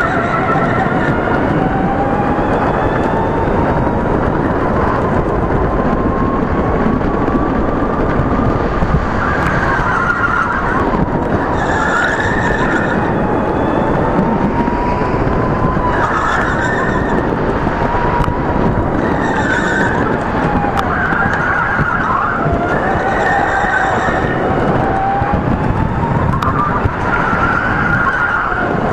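Electric go-kart heard from on board: the motor's whine rises and falls in pitch with speed over a constant chassis and track rumble, and the tyres squeal briefly through about six corners.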